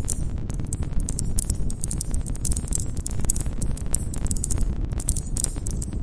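Campfire burning wood with many small crackles and pops over a low steady rumble of flames. Crickets chirp in high pulsing trills behind it.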